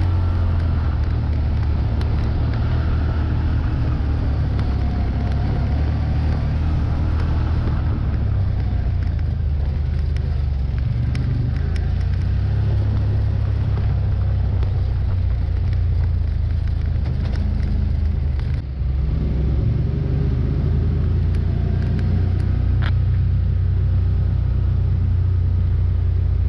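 Side-by-side UTV running along a trail at a steady pace: a continuous low engine rumble whose pitch drifts up and down with the throttle, with a few scattered sharp ticks.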